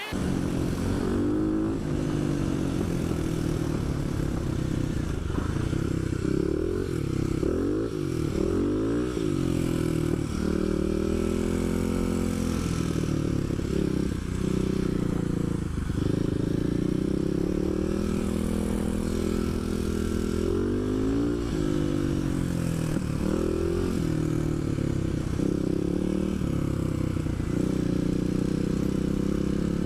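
Kawasaki KLX250 SF supermoto's single-cylinder four-stroke engine under way, its pitch climbing and dropping again and again as the rider accelerates through the gears and rolls off the throttle.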